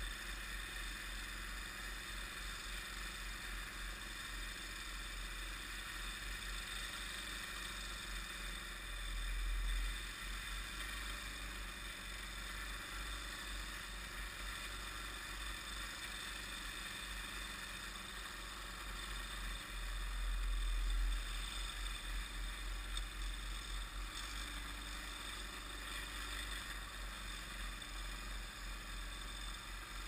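Snowblower engine running steadily in the distance, with two brief low rumbles about a third and two-thirds of the way through.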